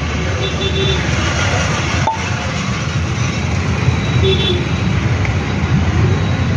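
Steady street traffic noise with a low rumble of passing vehicles, and a short vehicle-horn toot about four seconds in.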